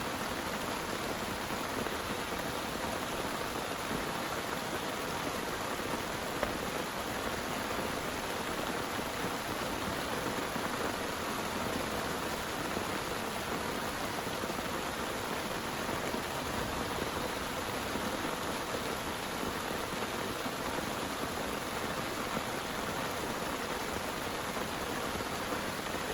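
Heavy rain falling steadily, an even hiss of downpour with scattered drop ticks.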